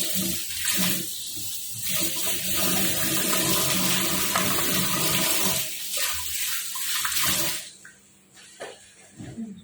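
Water running steadily from a kitchen tap, shut off about three-quarters of the way through, then a few faint knocks.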